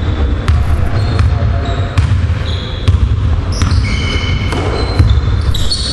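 A basketball bouncing a few times on a wooden gym floor, with short high sneaker squeaks, over a steady low rumble.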